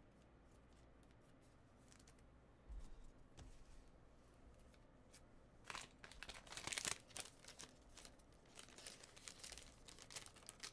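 Faint crinkling and tearing of a trading-card pack wrapper, with a short burst of crackling about six seconds in and lighter rustles after it.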